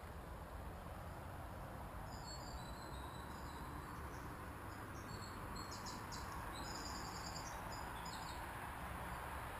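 Insects chirping, high-pitched, in short repeated pulsed trains over a faint steady background hiss and rumble.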